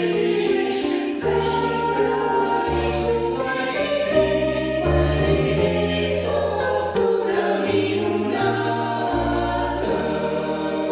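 Mixed choir singing a hymn refrain in Romanian, in sustained chords over a moving bass line.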